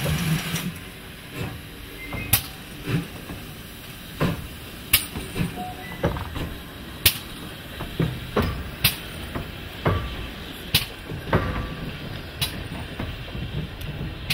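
GWR Hall class steam locomotive moving off slowly. A loud hiss of steam cuts off under a second in, then the engine rolls on with a low rumble and sharp metallic clanks about every two seconds.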